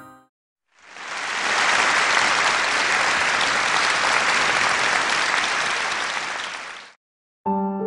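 A crowd applauding, swelling in about a second in and dying away about six seconds later.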